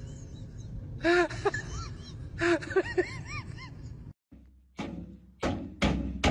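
A run of short honking calls, each rising and falling in pitch, from a large white long-necked bird. About four seconds in they stop abruptly, and several sharp hollow knocks follow inside a tube.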